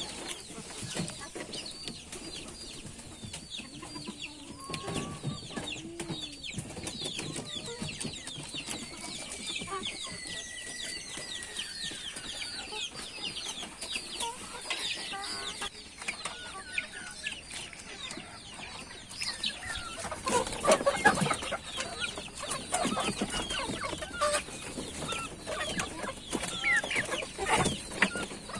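A flock of native (deshi) chickens clucking and calling, with many quick, high, falling calls overlapping, and a few louder bursts of calling about two-thirds of the way in and near the end.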